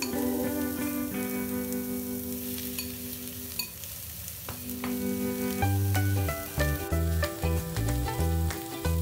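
Marinated beef slices and sliced onions sizzling in a hot nonstick frying pan, with background music of held notes and a bass line that comes in about halfway.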